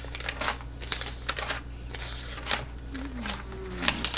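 Irregular light clicks and rustles of handling, with a steady low electrical hum underneath.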